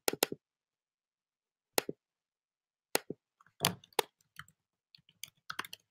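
Computer mouse clicks and keyboard keystrokes: irregular short, sharp clicks, a quick double click at the start, then more taps from about three seconds in and a fast run of them near the end.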